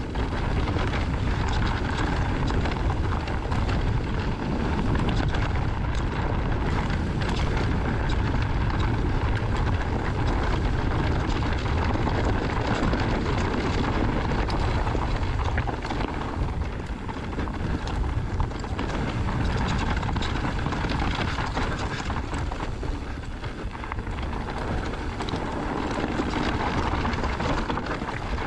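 Wind buffeting the action camera's microphone, with knobby tyres rolling over a rocky dirt trail as a Trek Rail electric mountain bike is ridden downhill. A steady low rumble that eases a little twice, about two-thirds and four-fifths of the way through.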